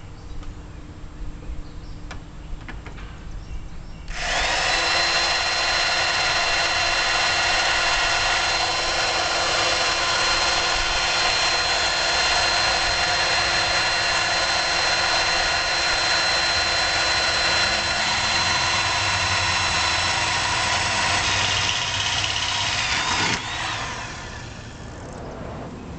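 Electric drill with a half-inch bit boring into the car's sheet-metal body. It starts about four seconds in and runs steadily with a high whine for nearly twenty seconds, then cuts out suddenly near the end, where the bit breaks.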